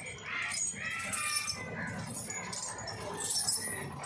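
Metal jangling in short bursts about once a second, typical of a Kerala temple elephant's chains clinking as it moves.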